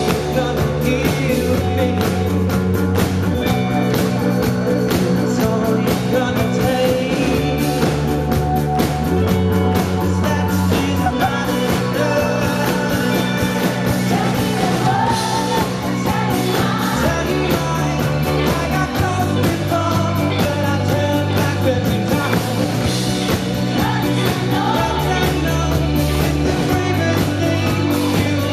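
Live band music with a man singing the lead vocal over drums and bass, the bass holding each note for about two seconds before moving on.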